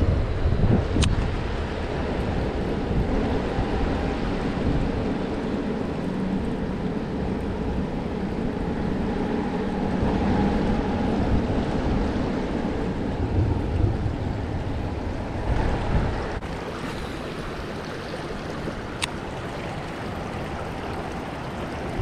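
River water rushing over rocks, with wind gusting on the microphone; the rush drops somewhat about sixteen seconds in.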